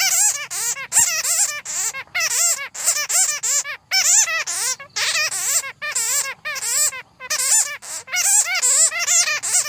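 Bats calling: rapid, wavering high squeaks and chatters in quick bursts with brief pauses between them, the kind of audible bat calls played to lure bats.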